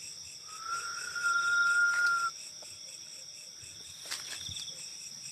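Steady high trilling of night insects such as crickets, with one long whistle-like tone about half a second in that rises slightly, then holds for nearly two seconds and is the loudest sound.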